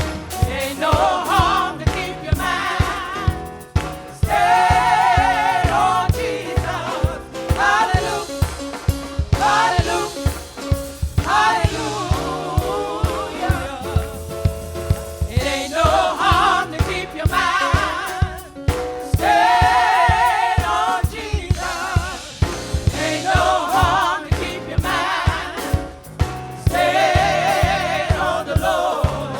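Gospel choir singing with band accompaniment and a steady beat.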